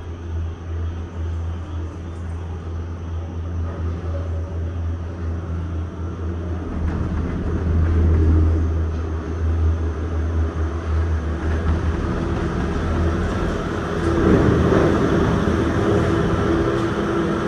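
Disney Skyliner gondola cabin in motion on its cable: a steady low hum and rumble that swells louder twice, about halfway through and again near the end, the second time with a whirring tone.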